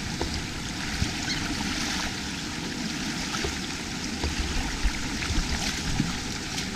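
Steady rushing noise like running water, with scattered small clicks and knocks.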